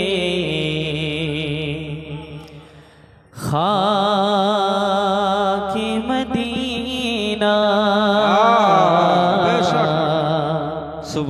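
A man singing a naat into a microphone: long held notes with a heavy vibrato. The voice fades about two seconds in, comes back strongly at about three and a half seconds, and goes on in long sliding phrases.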